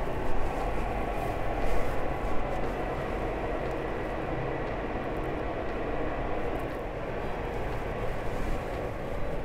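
Steady rumble and rush of air from a spray booth's ventilation fans running, with a few faint steady tones over it.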